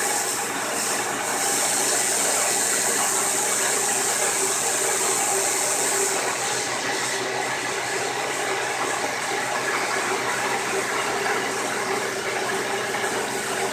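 CNC milling machine running a program, its spindle and cutter milling a part 10 millimeters deep with a steady mechanical hum, under the hiss of the air-driven coolant mist on the cutter. The hiss eases about halfway through.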